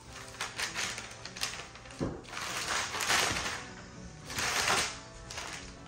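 Rustling and scratching of an automatic cat toy's fabric cover as a cat paws at it, loudest in two stretches about two and four and a half seconds in, over quiet background music.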